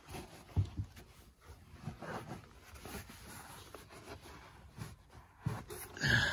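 Soft rustling of denim and scuffs and light knocks of leather work boots as jeans are pulled down over the boot tops by hand, with a short louder sound right at the end.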